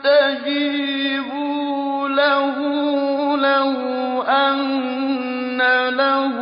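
A male reciter chanting the Quran in a melodic tajweed style, with long held notes ornamented by wavering turns of pitch.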